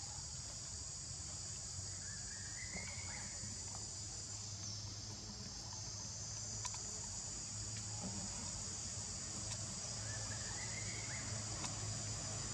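Steady high-pitched buzzing of an insect chorus. A short rising call comes twice, about two seconds in and again near ten and a half seconds.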